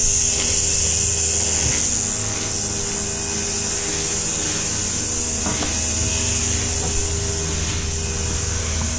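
Stump grinder's small gasoline engine idling steadily, a constant hum with a high hiss over it, a little quieter after about two seconds.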